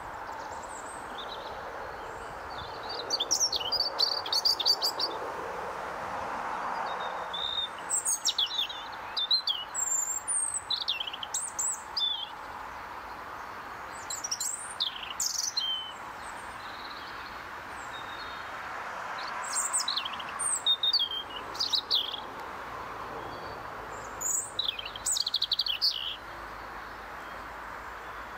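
European robin singing: about five phrases of high, rapidly changing notes, each a couple of seconds long, separated by pauses of a few seconds, over steady faint background noise.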